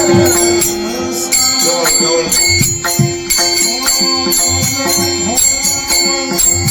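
Devotional kirtan-style music: a voice singing over a steady held drone note, with rhythmic jingling percussion like small hand cymbals.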